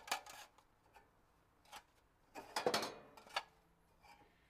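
Weber Spirit gas grill's steel Flavorizer bars (heat deflectors) being lifted out of the firebox by hand, knocking and clinking against each other and the burner housing. A few scattered knocks, with a short run of ringing metal clanks about two and a half seconds in.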